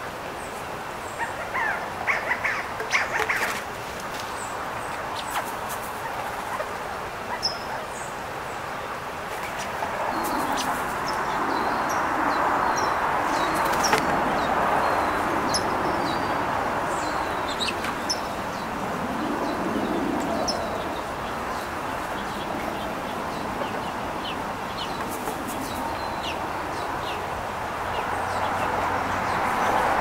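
Small birds chirping in short, high calls scattered throughout. A cluster of quick clicks comes about two to three seconds in. A steady rushing background noise swells up about ten seconds in and stays to the end.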